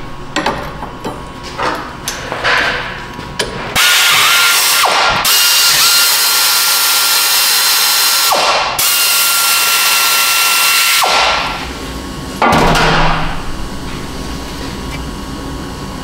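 Compressed-air tool running in three spells, the longest about three seconds: a loud rush of air with a steady high whine, stopping briefly twice. A few light metal knocks come before it.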